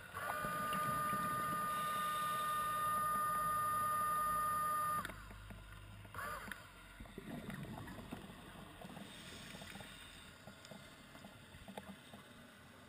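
Underwater scooter (diver propulsion vehicle) motor running with a steady high whine for about five seconds, then cutting off suddenly. A short bubbling gurgle follows about a second later, over a quiet low underwater rumble.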